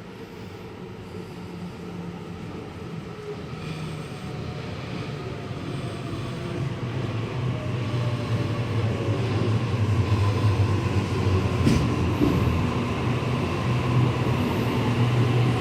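Electric passenger train approaching, its running noise growing steadily louder.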